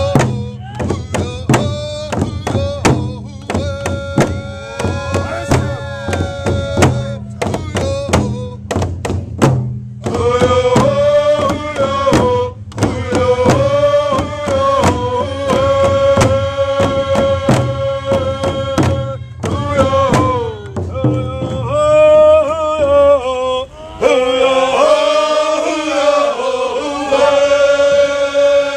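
A group of men singing a Port Gamble S'Klallam song in unison while beating hand-held rawhide frame drums in a steady beat. The drumming stops about three quarters of the way through, and the singing carries on alone.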